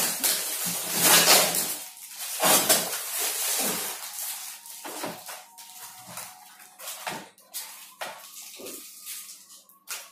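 Plastic packing tape being ripped off a cardboard carton and the flaps pulled open. There are two long tearing rasps in the first four seconds, then shorter rustles and scrapes of tape and cardboard.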